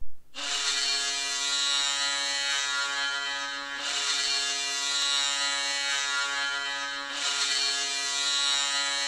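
HC Nové Zámky's ice hockey arena goal horn, signalling a home goal, sounding three long blasts of about three and a half seconds each, each a steady, buzzy tone. A brief thump comes at the very start.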